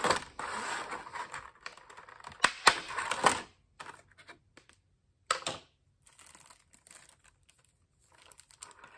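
Clear plastic clamshell packaging being unsnapped and opened by hand: crinkling plastic with several sharp clicks as the tabs pop free, busiest in the first three seconds, one more click about five seconds in, then faint rustling.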